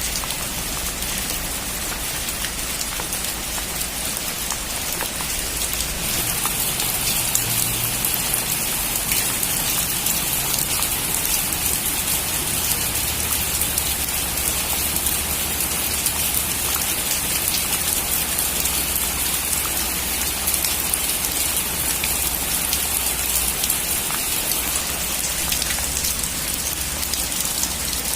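Steady heavy rain drumming on a metal roof, a dense hiss of drops that grows slightly heavier about six seconds in.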